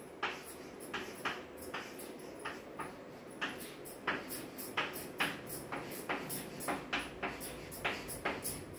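Chalk writing on a blackboard: a run of short taps and scratches, two or three a second, as each stroke of the letters is made.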